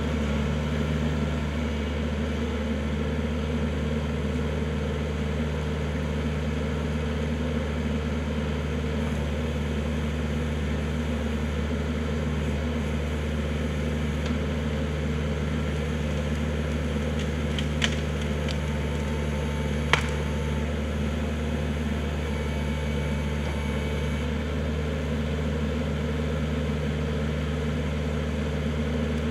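Kubota L4400 tractor's diesel engine running at a steady speed. Two sharp knocks come about two-thirds of the way through, the second louder.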